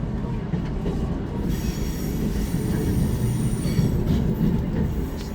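Train wheels squealing on the rails over a steady low running rumble, heard from inside the Hakodate Liner. The high-pitched squeal sets in about a second and a half in and fades away near the end.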